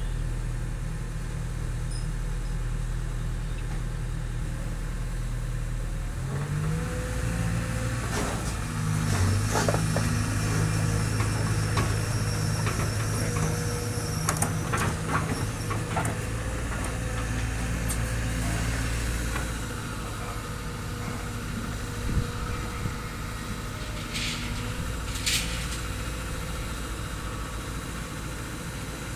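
Hydraulic excavator's diesel engine running steadily, its pitch stepping up about six seconds in as it works under load and easing back down later on. Scattered short clanks of steel being lifted and set down sound over it.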